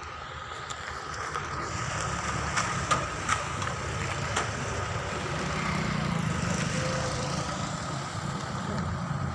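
A vehicle's engine running with a low rumble that swells about six seconds in, with a few sharp clicks around three to four seconds in.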